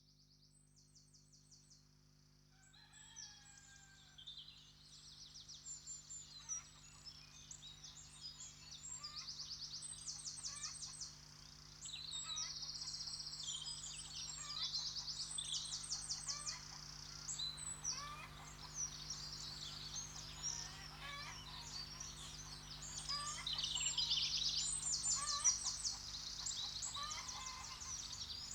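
Many songbirds chirping and trilling: rapid high trills and short sweeping chirps, fading in over the first few seconds and growing louder, over a steady low hum.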